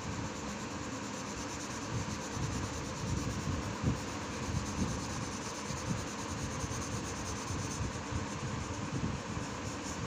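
Colour pencil rubbing on paper in quick shading strokes, heard over a steady hiss, with irregular soft knocks.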